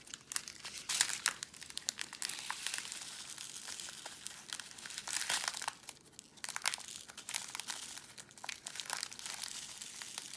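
Small plastic bag crinkling while round resin diamond-painting drills are tipped out of it into a tray, with many small clicks of the drills landing, pausing briefly about six seconds in.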